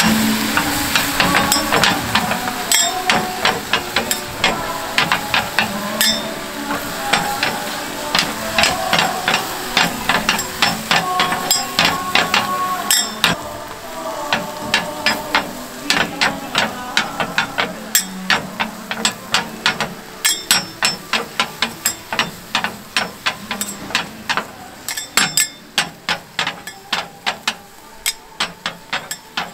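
Metal spatulas clacking and tapping on a flat iron griddle in quick, rhythmic strokes while cabbage pancakes are shaped and turned. Near the end the clacks settle into a steady tapping of about three a second.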